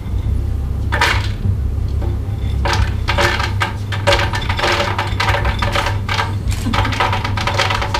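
Hazelnuts clattering into a glass blender jar: a few sharp clicks, then from about three seconds in a dense run of small hard clicks and rattles, over a steady low hum.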